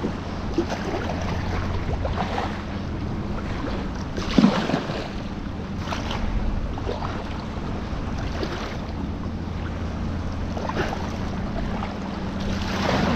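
Kayak paddle strokes splashing in moving water, one every two seconds or so, the heaviest about four and a half seconds in, over a steady rumble of wind on the microphone.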